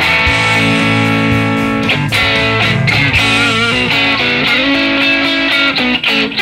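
Telecaster-style partscaster electric guitar played through an amp: loud, ringing chords and single notes, with a wavering bent note a little past halfway. The playing stops near the end.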